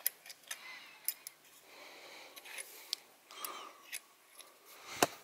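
Light metallic clicks and clinks of steel washers being slipped onto the gear shaft of an open scooter final-drive gearbox, scattered and faint, with one sharper click near the end.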